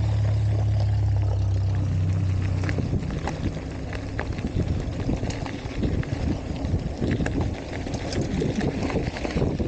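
A car's engine running close by, a steady low hum that fades out about three seconds in; after that, wind rumbling on the microphone with scattered knocks and clicks.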